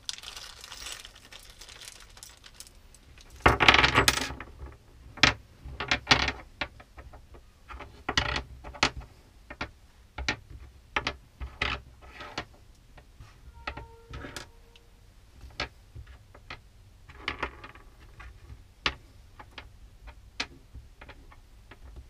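Small metal drill-bit depth stop collars clinking and clicking as they are handled and set down one by one on a workbench, with short bursts of plastic bag rustling, the loudest about three and a half seconds in.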